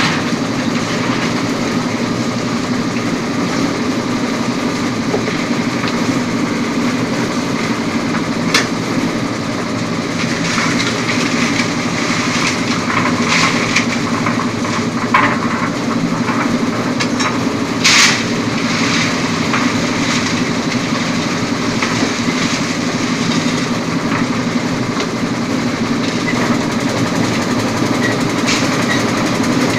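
Engine of a concrete mixer with lift running steadily, with a few short sharp knocks over it, the loudest about eighteen seconds in.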